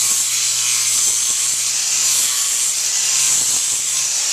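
Electric angle grinder with a sandpaper flap disc sanding a horse's hoof wall: a steady, loud, gritty hiss over the motor's faint low hum, as excess toe length is ground back.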